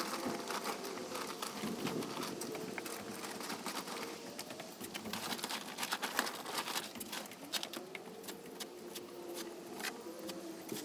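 Plastic tarp crinkling and rustling as it is lifted and dragged, with loose peat, perlite and sand pattering and sliding into a heap. The crackle is busiest about halfway through, and a shovel works into the pile near the end.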